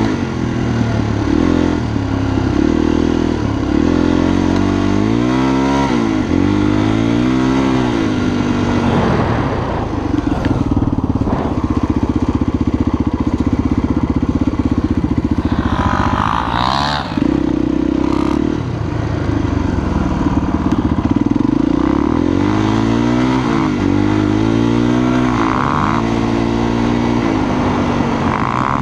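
Honda XLR250 enduro motorcycle's single-cylinder four-stroke engine under way, climbing in pitch as it revs through the gears and dropping at each shift, with a stretch of steady running in the middle.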